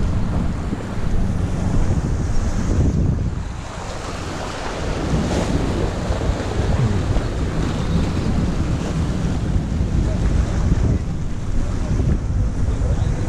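Wind buffeting the microphone over waves washing against the rocks of a jetty, a steady rough rumble that swells and dips.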